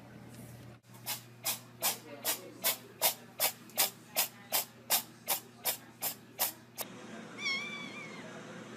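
A fast, even run of short hissing bursts, about sixteen of them at two or three a second. Near the end a single wavering cat meow follows.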